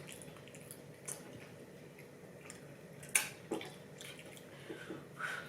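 Scattered soft, wet mouth clicks and smacks of someone chewing sushi, with the sharpest click about three seconds in.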